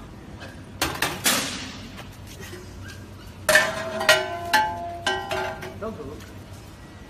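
Stainless steel mixer parts knocking together and ringing: a couple of sharp clanks about a second in, then a run of five or six ringing metallic strikes in the middle.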